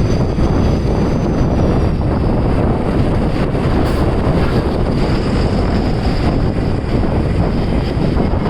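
Wind buffeting the microphone: a loud, continuous rumble and rush with no break.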